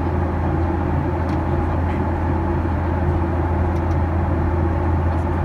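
Steady drone of a Boeing 737-800 in flight, its CFM56-7B turbofan engines and airflow heard inside the cabin over the wing, with a deep hum and a few steady tones above it.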